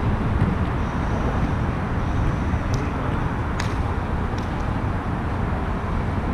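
Steady low rumble of road traffic on the overpass overhead, with a few sharp taps in the middle.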